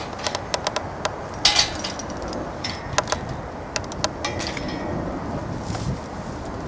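Metal clinking and clicking as a post puller's steel clamp is fitted around the base of a steel fence post: a quick run of sharp clinks, loudest about a second and a half in, thinning out after about four and a half seconds.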